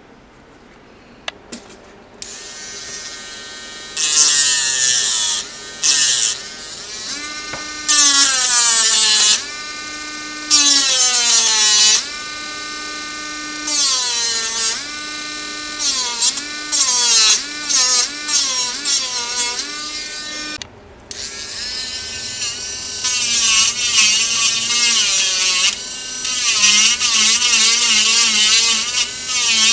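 Handheld mini rotary tool whining in repeated runs as it cuts and sands a round opening in a thin plastic sheet. Its pitch sags each time the bit is pressed into the plastic and climbs back when it is eased off.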